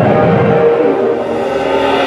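Concert band playing live: a busy low passage thins out about half a second in, and held notes at several pitches build up near the end.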